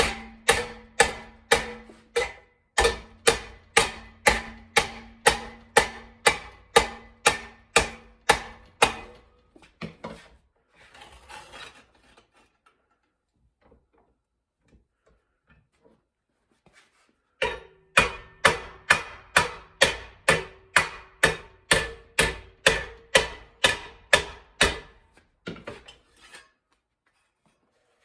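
Hammer blows on sheet steel being hand-formed into a repair panel, an even beat of about two strikes a second, each with a short metallic ring. The hammering stops for several seconds partway through, with only faint handling and scraping, then starts again.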